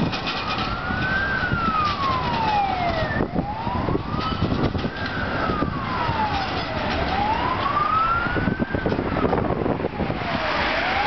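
Emergency vehicle siren wailing, its pitch slowly rising and falling about three times, over street traffic noise and a Škoda 15T tram passing close by.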